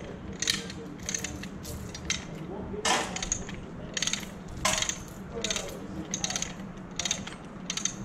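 Lever chain hoist (come-along) being ratcheted to pull on the overhead trolley wire for a splice: repeated sharp ratchet-and-pawl clicks with chain rattle, about one every half second, the loudest about three seconds in.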